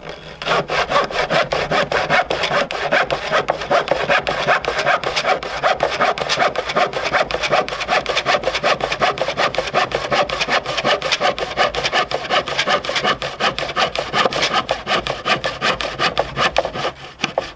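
Hand saw cutting through a Douglas fir board: a long run of quick, even push-and-pull strokes, the teeth rasping through the wood, stopping shortly before the end.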